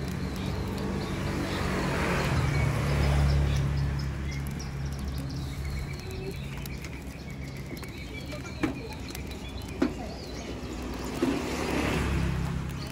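Roadside ambience: a steady low hum of passing vehicle engines, swelling about two seconds in and again near the end, with birds chirping and three sharp knocks in the second half.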